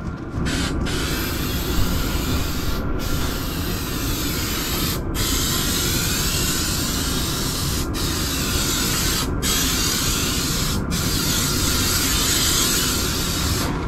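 Aerosol can of spray adhesive hissing as it is sprayed along a fabric strip over a foam tile seam. It goes in long sprays of one to three seconds, each broken by a pause of a split second as the nozzle is released.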